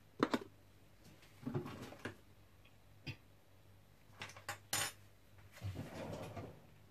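Kitchen utensils clinking: a metal spoon set down with a sharp clink, followed by a few scattered lighter clinks and knocks. Two stretches of soft rustling come between them.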